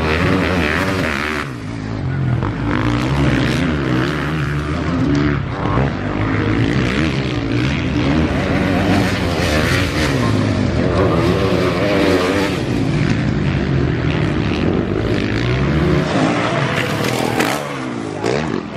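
Motocross bike engines revving hard, their pitch rising and falling again and again as the riders accelerate, shift and back off.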